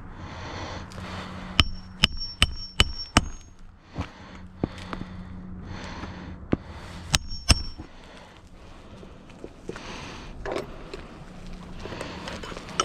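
Metal hammer strikes during a roof shingle repair, each with a short high ring: five quick blows about two seconds in and two more about seven seconds in. Scraping and rustling of shingles comes between them.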